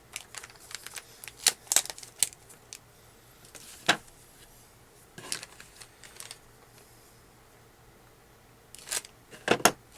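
Scattered sharp clicks and short crinkles of a plastic-packaged RC car parts kit being handled and opened, with small hard plastic parts tapping.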